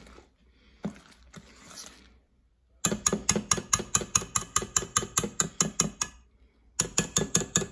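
Wire whisk beating a thick, heavy cake batter in a stainless steel bowl: fast, even clicking and tapping of the wires against the bowl at about eight strokes a second. It starts about three seconds in, pauses briefly about six seconds in, and picks up again near the end.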